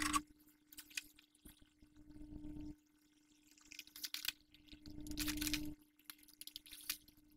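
A sheet of watercolour paper being slit with a paper knife: short scratchy rasps of the blade through the paper, strongest about four to five and a half seconds in. A low hum comes and goes twice.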